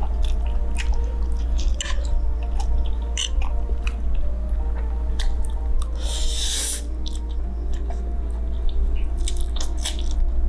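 Mouth sounds of eating instant ramen noodles: chewing with scattered wet clicks, and one long slurp of noodles through the lips about six seconds in. Background music plays under it.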